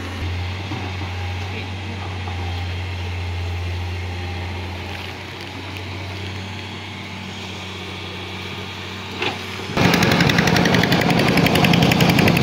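Hydraulic excavator diesel engine running: first a steady low hum heard from a distance, then, after a sudden cut about ten seconds in, a much louder close-up engine running with a fast, even beat.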